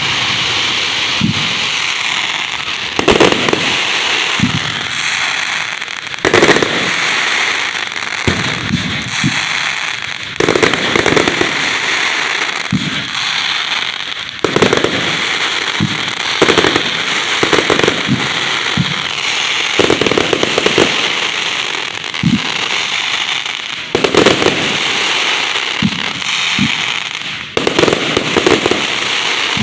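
Fireworks display going off at close range: a steady dense crackling, cut by loud bangs of bursting shells every second or two.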